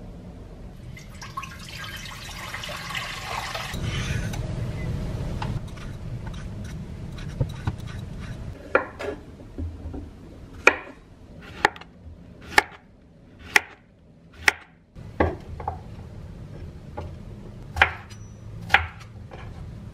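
Chef's knife cutting zucchini and red bell pepper on a bamboo cutting board: the blade knocks sharply on the board about once a second from about nine seconds in. A stretch of noise fills the first few seconds.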